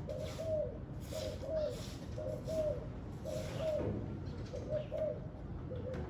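Spotted dove cooing: short arched notes, mostly in pairs, repeating about once a second. Wind rumbles steadily underneath.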